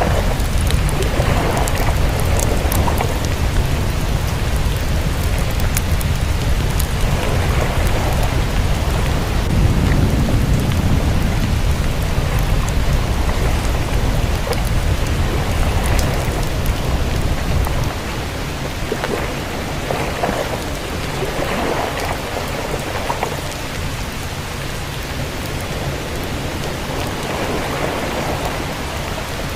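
Rain and thunderstorm ambience: a steady hiss of rain with scattered fine drop ticks over a low thunder rumble, the rumble easing off about two-thirds of the way through.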